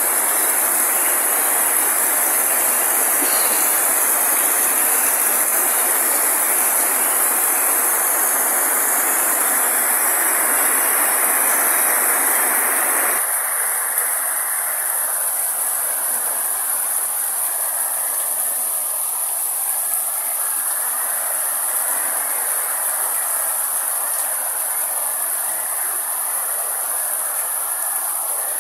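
Steady heavy rain, with a steady high hiss above it. About thirteen seconds in it drops abruptly to lighter, softer rain.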